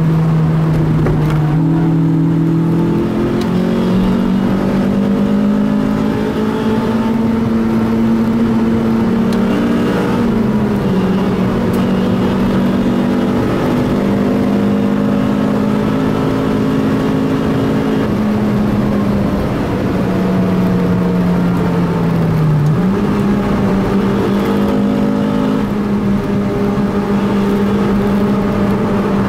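Honda CRX's four-cylinder engine heard from inside the cabin, driven hard at track speed, with tyre and road noise beneath. Its pitch holds, climbs and drops in steps as the gears change, with a falling note and a sudden jump in pitch about three-quarters of the way through.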